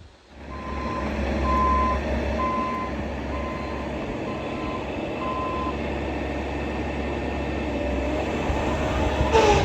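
Bobcat E55 mini excavator's diesel engine starting and running steadily, with six short electronic warning beeps about a second apart in the first few seconds. It is run to test a fitting just resealed with a new O-ring.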